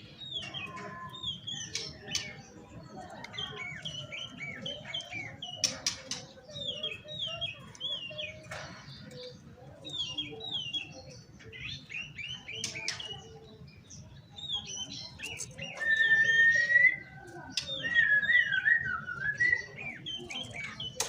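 Oriental magpie-robin (kacer) singing a varied chattering song of quick, twittering phrases. Over the last few seconds it turns louder, with clear sustained whistled notes.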